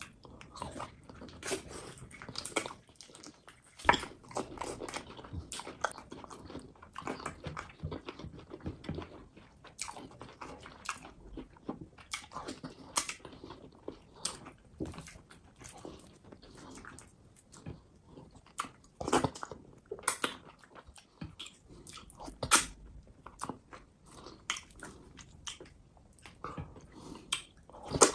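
Close-miked eating sounds: wet mouth smacking and chewing with irregular sharp clicks, as fufu and soup are eaten, a few smacks much louder than the rest.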